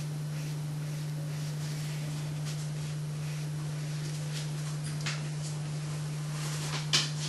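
A steady low hum with a few faint, brief swishes of a paintbrush on watercolour paper; the clearest swish comes near the end.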